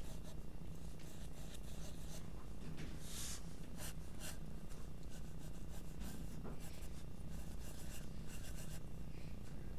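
Mechanical pencil's graphite lead scratching on paper in quick, short sketching strokes as small overlapping circles are drawn, with one longer stroke about three seconds in.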